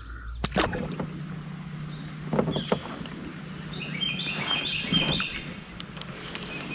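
Knocks and clicks of gear being handled in a fishing kayak over a steady low hum, with a sharp knock about half a second in. About four seconds in, a bird sings a quick run of short notes.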